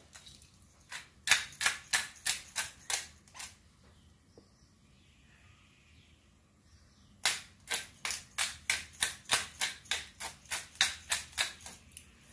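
Rapid sharp clicks, about four a second, in two runs: a short run near the start and a longer one from about the middle to near the end.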